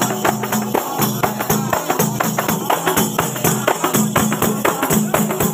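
A group of large hand-held frame drums (daf) beaten together by hand in a fast, steady rhythm.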